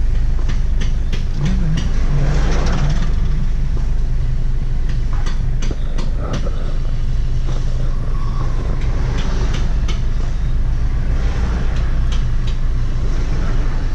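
Inside a slow-moving car's cabin: a steady low engine and road rumble, with scattered short rattles and clicks from the interior.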